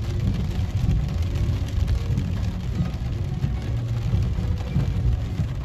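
Car driving slowly on a wet road, heard from inside the cabin: a steady low rumble of engine and tyres, with a faint hiss of rain.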